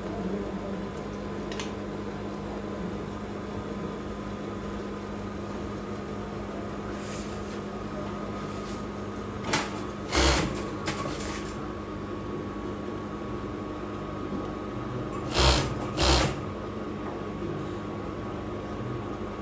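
Industrial overlock sewing machine humming steadily, with four short bursts of stitching: two near the middle and two about three quarters of the way through.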